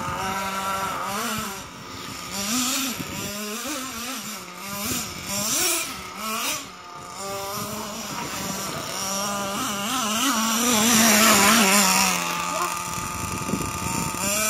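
Radio-controlled model cars driving, their motors rising and falling in pitch as they speed up and slow down, with a louder stretch of hiss about ten seconds in.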